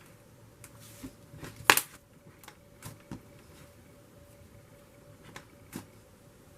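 Slime being poked, stretched and squished by hand, giving scattered sticky clicks and pops, the loudest a sharp pop about two seconds in.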